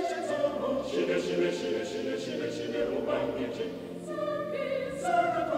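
Unaccompanied choir of mostly men's voices singing a hymn in several parts, with no break.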